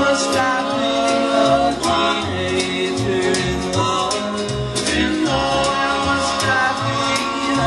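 Recorded song with singing, instruments and a steady beat, played for the dancing.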